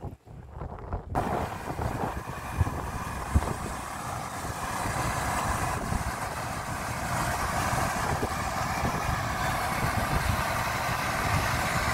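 Dometic Penguin II rooftop air conditioner's fan starting suddenly about a second in, then running steadily with a rush of air that slowly grows a little louder. The fan runs on a newly fitted dual run capacitor, which shows the repair worked. Two short knocks come a little under a second apart soon after it starts.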